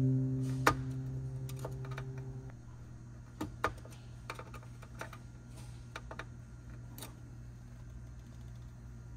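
The held notes of background music fade out about two and a half seconds in. Scattered light clicks and taps follow, from a screwdriver working the CPU heatsink screws and from small plastic parts being handled inside a Dell R640 server chassis.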